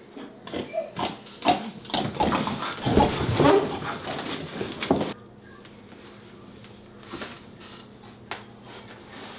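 Pig noises made while eating face-first from a bread roll, in a run of loud, irregular bursts for about five seconds. After that it turns much quieter, with a few faint clicks.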